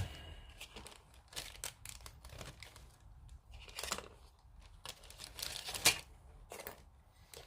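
Small plastic model-kit parts being moved aside on a workbench: scattered light clicks and rustles, with a sharper knock about four seconds in and another near six seconds.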